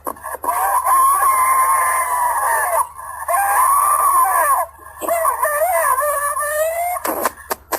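A woman screaming over a phone line: three long, high screams that rise and fall in pitch, then short broken cries near the end.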